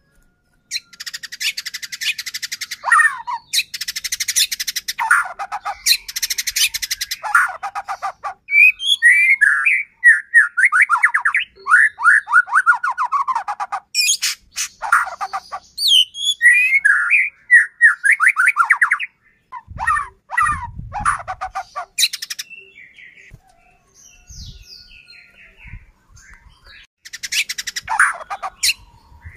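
White-rumped shama (murai batu) singing in full song. Bursts of rapid, dry rattling crackles alternate with long runs of loud whistled phrases that sweep down in pitch.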